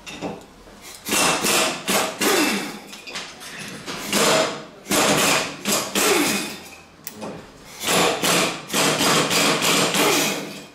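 Repeated scraping strokes, about one a second, several with a short falling squeal.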